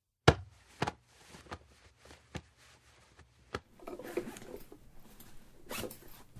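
Handling noises. There is a sharp click about a quarter-second in, a few fainter clicks after it, then a rasping, zipper-like rustle through the second half.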